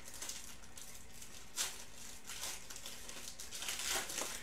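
Foil wrapper of a Panini Prizm football card pack crinkling as it is handled and opened and the cards are pulled out, with one sharp crinkle about a second and a half in and a cluster of crinkles near the end.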